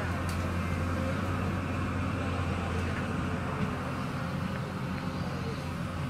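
Hyundai excavator's diesel engine running steadily as the machine works its boom and bucket, a constant low drone.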